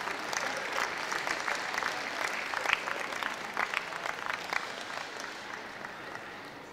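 Audience applauding with steady clapping, which slowly dies away over the last couple of seconds.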